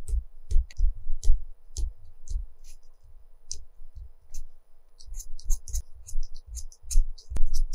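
Coloured pencil scratching across textured paper in short, quick strokes, each with a soft tap as the pencil meets the paper. The strokes come faster after about five seconds.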